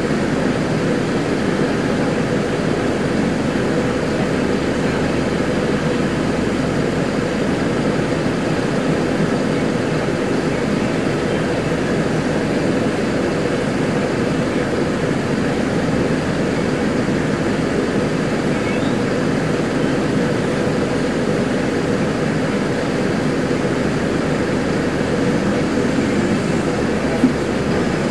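Mercedes-Benz OF-1721L Euro 5 bus's front-mounted diesel engine running loud, a steady drone that holds without revving up or down.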